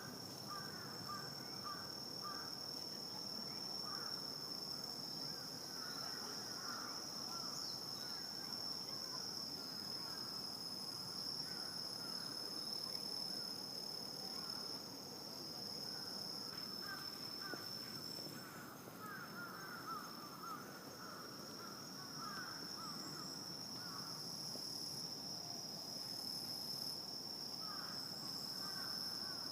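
Night insects, crickets among them, trilling in a continuous high steady chorus. Patches of lower, faster chirping come and go at the start, in the middle and near the end.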